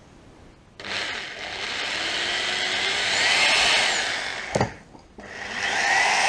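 Power drill running against the metal outer skin of the differential's old pinion oil seal, to make a hole for a screw that the seal will be levered out by. It starts about a second in with a rising whine, stops briefly with a click past halfway, then runs again.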